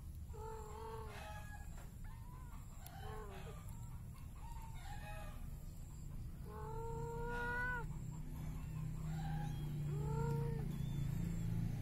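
A series of short pitched animal calls, about seven, each lasting under a second to just over a second, with the longest in the middle. A low rumble builds up underneath from about two-thirds of the way in.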